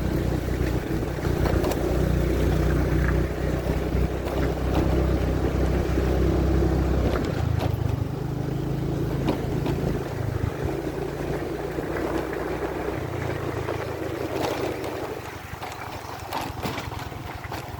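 Small motorbike engine running steadily on a rough dirt track, its note changing about seven seconds in and again around thirteen seconds, with occasional short knocks.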